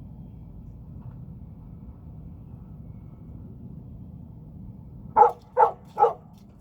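A dog barking three times in quick succession near the end, over a steady low background noise.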